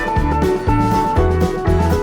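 Background music: guitar-led instrumental with a steady bass beat.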